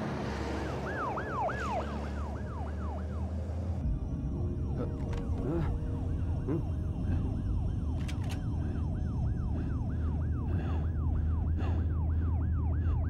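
Police car siren in a fast yelp, sweeping up and down about three times a second and growing slightly louder as it closes in, over a steady low engine drone.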